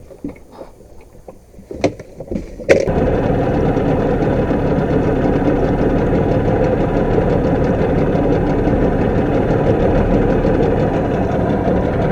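A few faint knocks, then nearly three seconds in a boat engine comes on abruptly and runs loud and steady.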